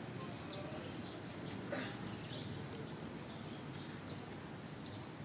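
Quiet outdoor ambience: a steady low background rumble, with a few short, high bird chirps about half a second, just under two seconds and about four seconds in.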